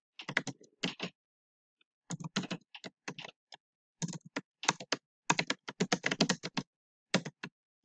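Typing on a computer keyboard: quick runs of keystrokes broken by short pauses, with the longest run starting about four seconds in.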